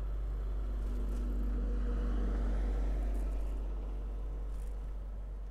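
A motor vehicle passing close by: its engine and tyre noise swell to a peak about two and a half seconds in, then fade away, over a steady low rumble.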